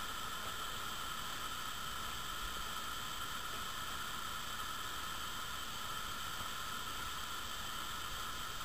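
Steady hiss of background noise, unchanging throughout, with no distinct sound in it.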